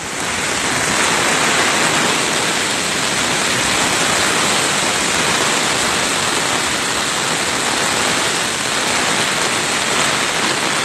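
Steady rush of river floodwater pouring across a road, mixed with heavy rain falling.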